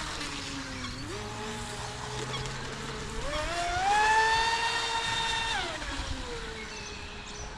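Traxxas Disruptor RC boat's electric motor and drive whining as it runs on the water. The whine sits low at first, climbs as the throttle is opened about three seconds in, holds there for about two seconds, then drops away as the throttle is backed off.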